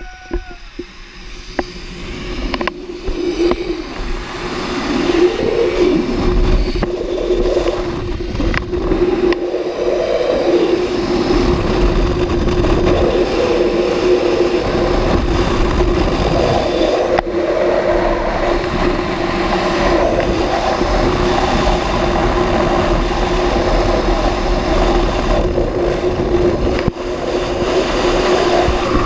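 Zipline trolley pulleys running fast along the steel cable with a steady hum, under a heavy rush of wind on the camera microphone. It builds over the first few seconds as the rider picks up speed, then holds.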